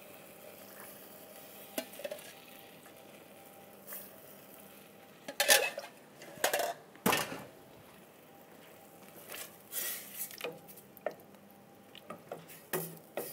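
Scattered clinks and knocks of a stainless steel ladle and jug against stainless steel saucepans, with a wooden spoon stirring chunky tomato sauce, over a faint steady hiss. The loudest knocks come about halfway through.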